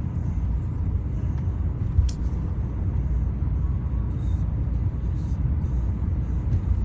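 Steady low rumble of a car's engine and tyres heard from inside the cabin while driving, with a single sharp click about two seconds in.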